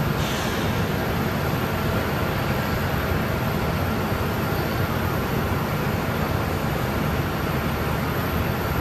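Steady low rumble of running ground machinery, most likely the de-icing truck's engine and pump, with a faint steady whine over it and a brief hiss near the start.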